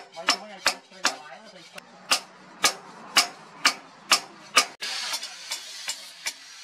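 Hammer blows on red-hot leaf-spring steel on a steel post anvil, a sharp ringing strike about twice a second. After a cut near five seconds, lighter and quicker taps on the cooled blade.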